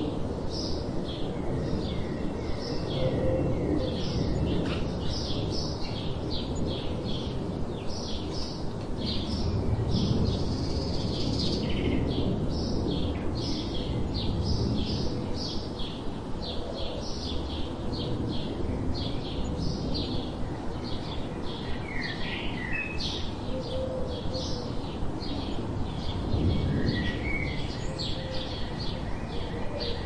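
Small birds chirping continuously: rapid series of short, high notes, several a second, with a few slurred call phrases near the end, over a steady low background rush.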